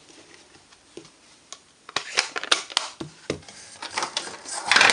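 Craft supplies being handled on a desk: a quiet start, then from about two seconds in a series of sharp clicks and taps from small plastic stamps and card, with a louder rustle near the end.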